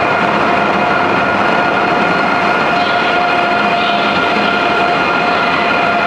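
High-speed electric passenger train running past at speed: a steady rolling rush of wheels on rail with a constant high whine over it.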